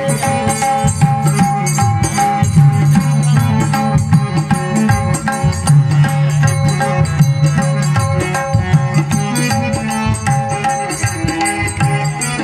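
Harmonium and tabla playing a folk-song accompaniment: the harmonium holds steady notes over a running tabla rhythm.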